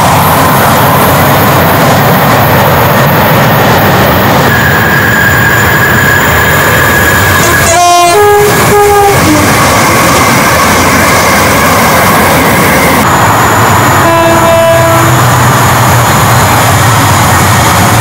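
Trains running through a station at speed, with a loud, continuous rush of wheel and air noise. About eight seconds in, a train sounds a series of short two-tone horn notes. Around fourteen seconds in, a second two-note horn blast sounds.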